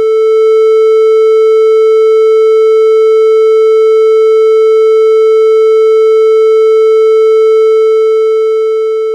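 Steady 440 Hz triangle-wave test tone: one unwavering electronic pitch with fainter, evenly spaced overtones above it, loud, beginning to fade out near the end.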